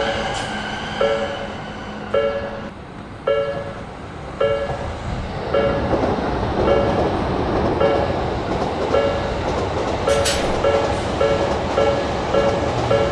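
Railroad crossing warning bell ringing in regular two-tone dings, about one a second, quickening to about two a second near the end. The noise of a passing train joins from about halfway through.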